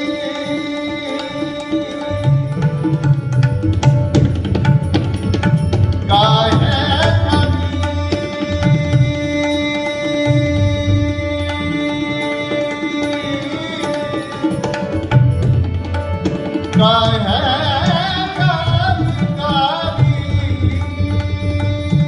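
Harmonium holding steady chords while tabla plays a rhythmic accompaniment, the tabla's deep bass strokes coming in about two seconds in. A singer's voice rises over them in two ornamented phrases, one about six seconds in and another near seventeen seconds.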